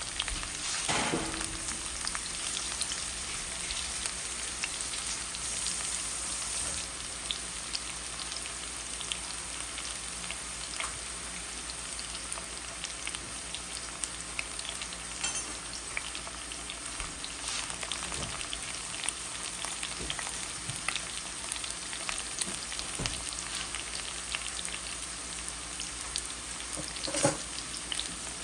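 Parboiled cassava pieces frying in hot oil: a steady sizzle full of small crackling pops. A couple of louder knocks come about a second in and near the end.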